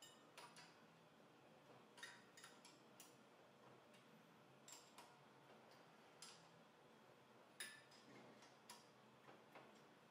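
Faint, irregular metallic clicks and taps of lug nuts and a dyno hub adapter being handled and threaded by hand onto a car's wheel studs.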